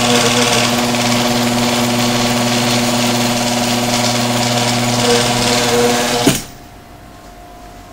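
Genie garage door opener's electric motor and drive running steadily with a hum and mechanical rattle as it drives the awning out, then cutting off with a short clunk about six seconds in.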